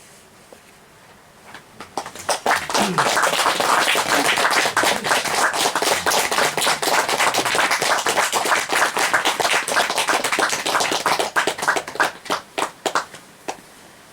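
Audience applauding: the clapping starts about two seconds in, holds dense, then thins to a few scattered claps and stops near the end.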